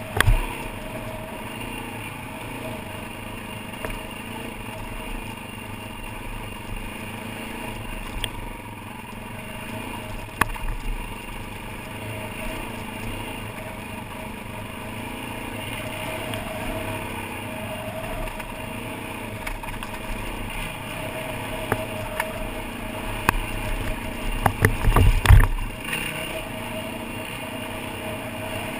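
Dirt bike engine, a Yamaha WR450F, running at steady low revs as it rolls down a gravel track, with wind on the microphone. Occasional knocks as the bike jolts over bumps, and a run of heavy thumps a few seconds before the end.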